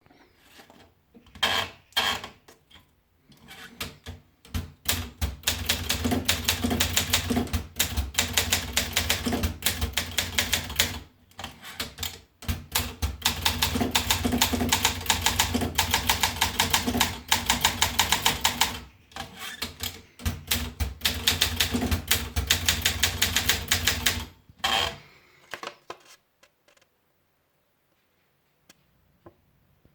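Olympia Monica manual typewriter being typed on: rapid runs of keystrokes, broken by two short pauses. A few separate clacks come before the typing starts, and one more comes just after it stops.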